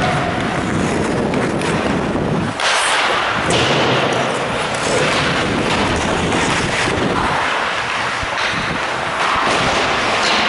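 Ice hockey play close up: skate blades scraping the ice and sticks and puck clacking, heard through a microphone on a goalie's mask that adds rubbing noise. A louder, sharper clack comes about two and a half seconds in.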